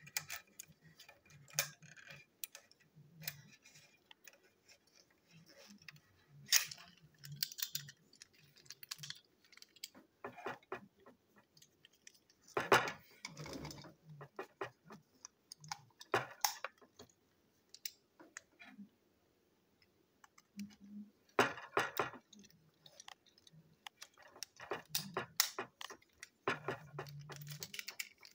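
Hard plastic parts of a toy fuel tanker wagon being handled and fitted together: irregular small clicks and rattles, with a few louder snaps scattered through.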